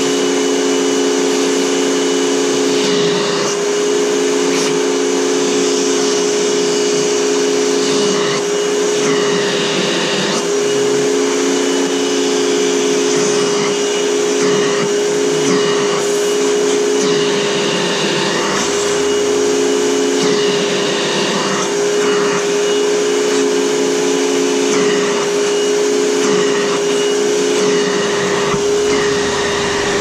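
Upright vacuum cleaner running with its hose and brush tool in use: a steady motor whine under a rush of air, the airflow sound shifting now and then as the tool is worked.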